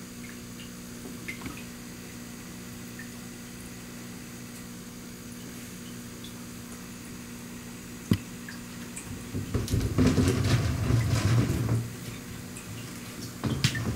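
A steady low hum with a sharp click about eight seconds in, then louder rustling noise for about two seconds, which comes back near the end.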